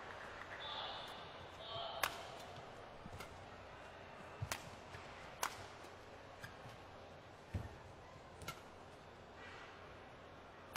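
Badminton rackets striking a feathered shuttlecock back and forth in a rally: sharp, single hits about one to two seconds apart, about six in all, over the low hum of an arena hall.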